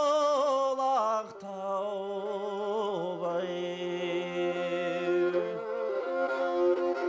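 Kazakh song with kobyz: a sung note with heavy vibrato gives way, about a second in, to long held bowed kobyz tones that step between a few pitches.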